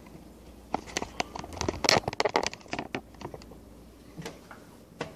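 A spoon tapping and scraping against the metal inner pot of an electric pressure cooker while cooked quinoa is stirred and scooped, a quick run of clicks and scrapes followed by two single taps near the end.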